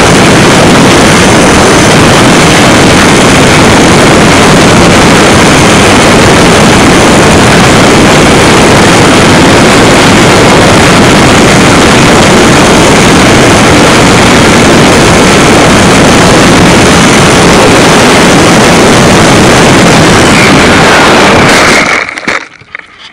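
HobbyZone Super Cub RC plane's electric motor and propeller, heard from a camera riding on the plane: a loud, steady rush of motor and airflow that overloads the microphone. About 22 seconds in it cuts off suddenly as the plane comes down in the grass and the motor stops.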